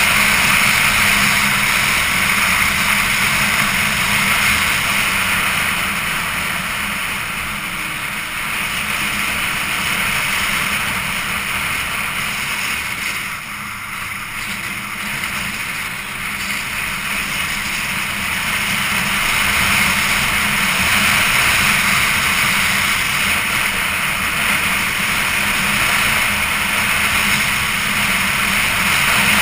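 Motorcycle being ridden at road speed: wind rushing over the onboard camera's microphone over the engine's running. The sound eases off for a couple of seconds about halfway through, then builds again.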